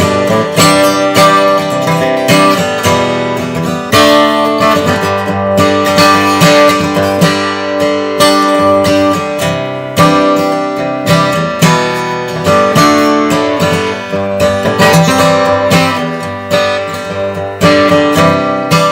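Gibson Hummingbird acoustic guitar strummed in chords, a steady run of strokes with accented strums every second or two.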